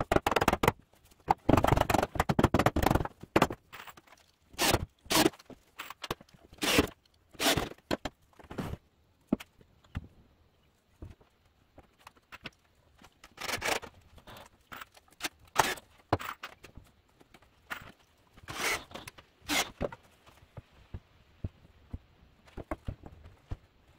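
Rubber mallet knocking pine 2x4 rails into a desk frame, a quick run of knocks about a second in, followed by scattered single knocks and short scrapes of the boards being handled.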